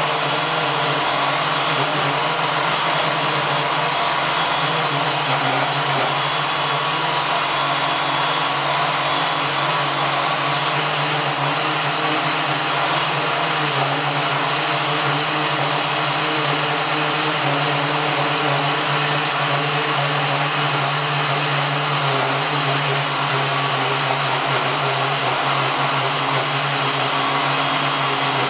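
Power cutting tool running continuously at a steady load: a loud, even machine drone with a low hum and a hiss, unchanging throughout.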